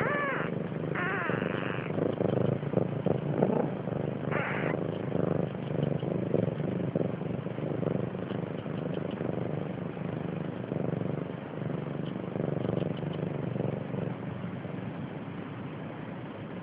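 Cat purring steadily, a close, continuous low rumble. It is broken by three short, high squeaks with bending pitch from the newborn kitten: one at the start, one about a second in, and one about four and a half seconds in.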